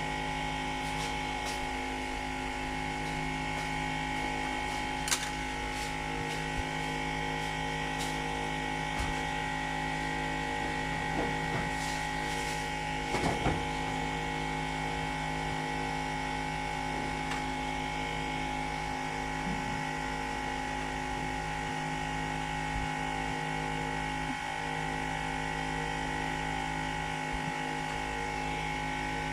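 Steady electrical hum made of several fixed tones, with a few light clicks and taps from work on a TV circuit board.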